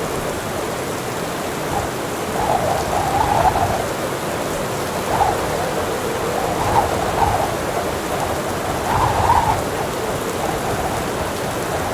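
Steady heavy rain with swells of rumbling thunder every few seconds, the strongest roll about nine seconds in.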